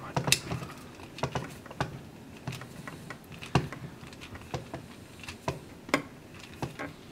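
Irregular small clicks and taps of a screwdriver working on the plastic extruder assembly of a Gmax 1.5 XT 3D printer while it is taken apart.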